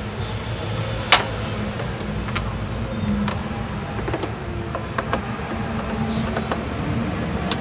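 Scattered sharp clicks and light knocks of hands and a tool working the clips and fittings around a car's radiator, the loudest click about a second in, over a steady low hum.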